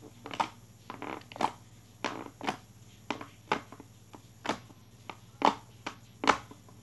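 Fluffy slime squished and pressed by hand against a plastic plate, giving a string of short, sharp pops and squelches, roughly one or two a second.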